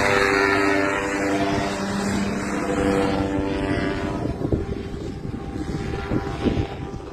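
Propeller aircraft engine running at power, fading away over the first few seconds as the aircraft departs. Gusty wind buffets the microphone more and more as the engine fades.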